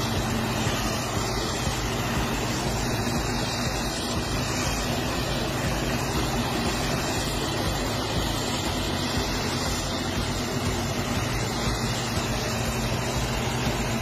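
Self-propelled forage harvester running steadily under load: a constant engine drone under a steady rushing noise as it chops crop and blows it out through its spout.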